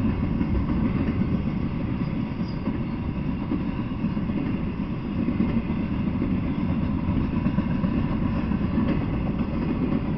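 Intermodal freight train rolling past, its cars making a steady, low rumble of wheels on rails.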